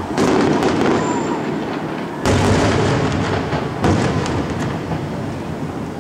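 Aerial fireworks bursting three times, each burst starting suddenly and followed by crackling that dies away.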